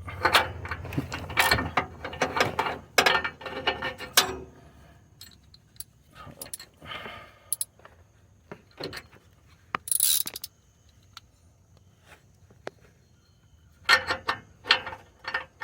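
Ratcheting wrench clicking as the new rear oxygen sensor is tightened into the exhaust pipe: a fast run of clicks through the first four seconds, scattered ticks after that, and another run of clicks near the end.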